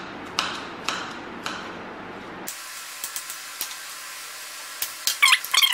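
Kitchen knife chopping strawberries on a plastic cutting board, about two cuts a second. From about halfway the sound turns to a steady hiss with a few clicks, and a louder run of irregular clinks and rattles comes near the end as the pieces go into a glass jug of jelly liquid.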